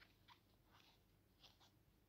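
Near silence, with about five faint, short scratches of a crochet hook and yarn as double crochet stitches are worked.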